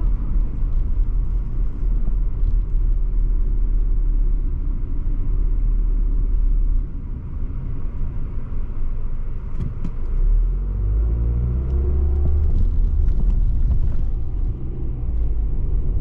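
Car cabin sound of the engine and tyre rumble. The rumble drops about seven seconds in as the car slows at a railway level crossing, with a couple of knocks as it goes over the rails. The engine then rises in pitch as the car pulls away.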